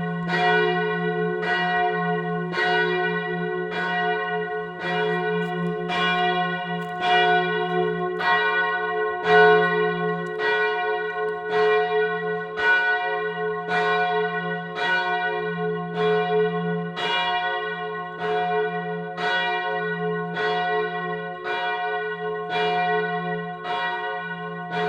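Church bell ringing in a steady rhythm, about one stroke a second. Each stroke rings on over a sustained low hum.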